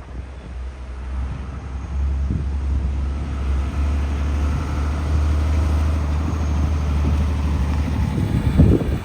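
Overland truck's engine running after a jump start, a steady low drone that grows louder about two seconds in, with a loud thump near the end.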